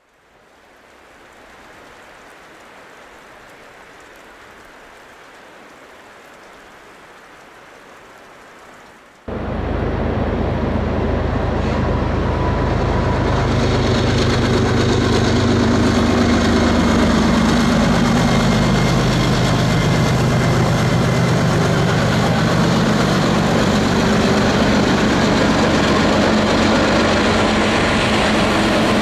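A faint steady hiss for about nine seconds, then a sudden jump to the loud running of a CN freight train's diesel locomotives. Their engine drone drops in pitch around the middle and settles into a steady rumble.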